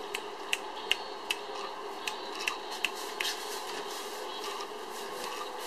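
About eight sharp clicks, a little under half a second apart with a short gap in the middle, stopping a bit over three seconds in, over a steady background hiss.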